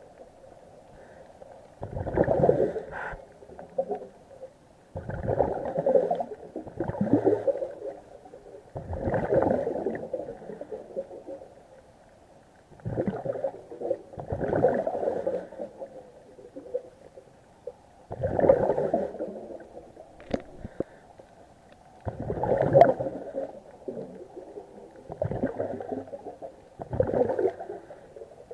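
A scuba diver's breathing heard underwater: a rush of exhaled bubbles from the regulator about every three to four seconds, each lasting a second or two, about seven times, with quieter pauses between.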